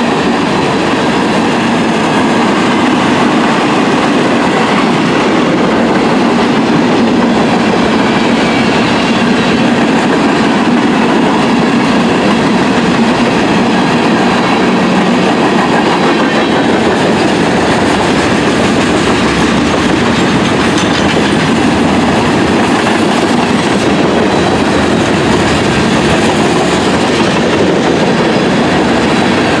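Freight train cars rolling past, a loud steady rumble of steel wheels on rail with clickety-clack over the joints.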